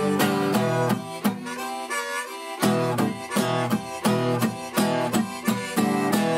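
Instrumental folk music: a harmonica melody over acoustic guitar, the bass notes dropping out for a moment near the middle.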